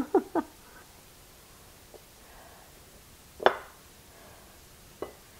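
A few light knocks of kitchen utensils in a quiet room: one sharp click about three and a half seconds in and a fainter one near the end.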